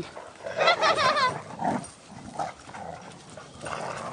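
A dog playing tug with a stick gives one brief, high, wavering vocalisation about half a second in, followed by quieter scuffling and low dog noises.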